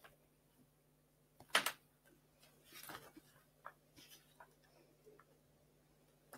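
Faint scattered clicks and knocks over a low steady hum. There is one louder knock about a second and a half in and a brief rustle near three seconds.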